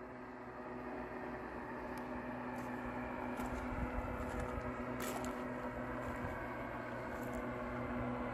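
Engine and propeller of a distant powered paraglider (paramotor) humming at a steady pitch, slowly growing louder as it flies.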